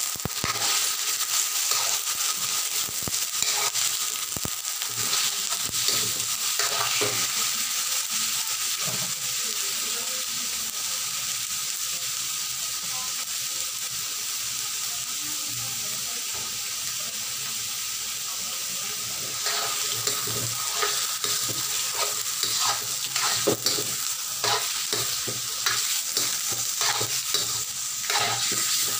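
Pork pieces frying in hot oil in a wok with a steady sizzle. A slotted metal turner scrapes and knocks against the wok as the meat is stirred, busily in the first several seconds and again through the last third, with a calmer stretch of plain sizzling between.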